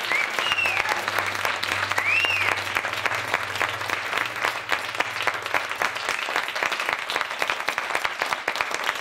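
Theatre audience applauding steadily, with a couple of short rising-and-falling cheers in the first few seconds.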